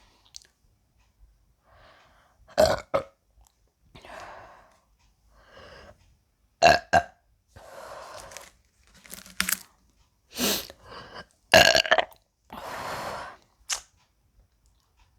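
A woman burping repeatedly from carbonated Sprite: several short, loud burps, some in quick pairs, with softer, longer sounds between them.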